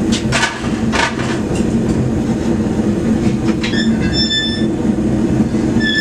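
Blacksmith's forge running just after being fired up: a loud, steady roar. A brief high-pitched squeal sounds about four seconds in and again near the end.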